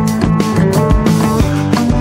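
Background rock music with a steady drum beat and held chords.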